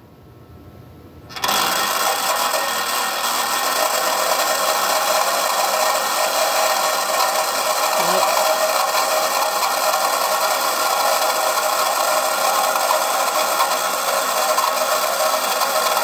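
HO scale model railroad turntable's motor and gear drive running as the bridge rotates, starting about a second and a half in and then going on steadily with a mechanical rattle. The owner says its old gears need new lubricant.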